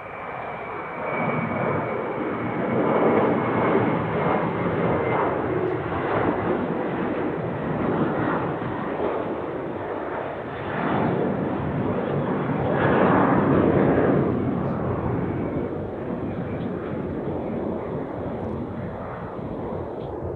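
Airbus A320-family jet airliner's engines at takeoff thrust during the climb-out: loud, continuous jet noise that swells and eases in waves. A thin high whine is heard at the start and fades within the first couple of seconds.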